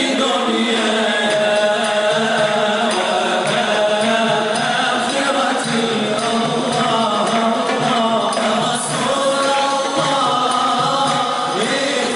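Group of men singing a Sufi madih (devotional praise song) together in unison chant, with a frame drum keeping time.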